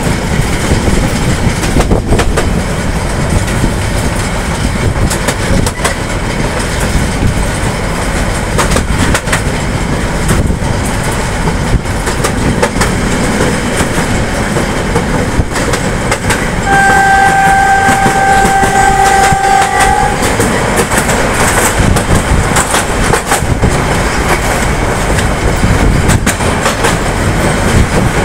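LHB passenger coaches rolling at speed, heard from on board: a steady rumble with the clickety-clack of wheels over rail joints. About two-thirds of the way through, the locomotive horn sounds one steady blast of about three seconds, and the running noise is louder from then on.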